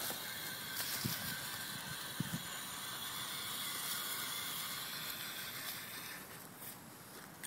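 Electric motor and gear whine of an RC4WD Timberwolf scale crawler truck driving over grass and leaves, with a couple of low knocks from the chassis over the ground about one and two seconds in; the whine stops about six seconds in as the truck pulls up.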